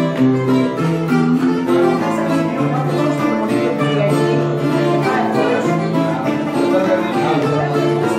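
Live Cretan folk music: an acoustic guitar strummed along with a plucked lute, a melody of held notes over a steady rhythm.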